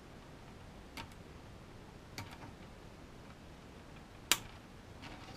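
A few faint clicks as hands handle wires with a pair of snips, then one sharp snap about four seconds in as the snips cut through a plastic cable tie.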